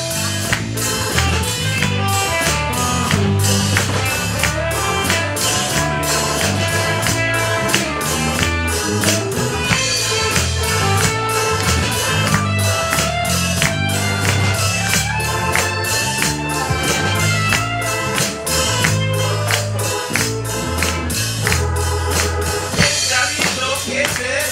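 Live band playing with a steady beat: electric bass, electric guitar and drum kit.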